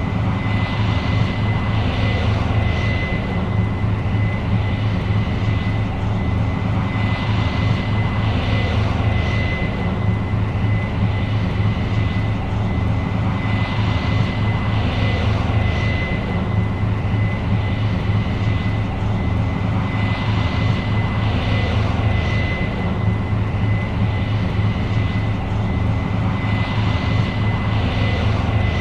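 New Holland CR 7.90 combine running steadily while harvesting corn: a heavy engine drone with a constant high whine over it, and a rushing noise that swells and fades about every six seconds.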